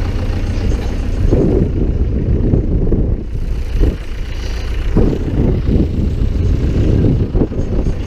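Zetor 6340 tractor's diesel engine running steadily under load, heard from inside the cab with the door open. Several short, louder rattling bursts break in over the drone.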